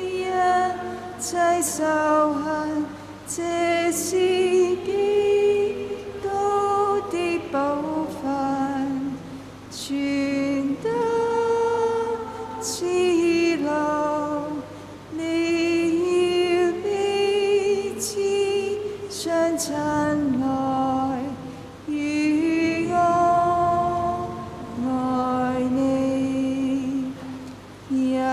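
A slow Chinese hymn sung in phrases with short pauses between them; the voices are mostly women's.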